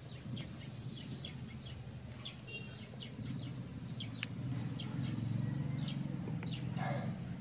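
Small birds chirping, many short falling chirps at several a second, over a steady low rumble that gets louder about halfway through.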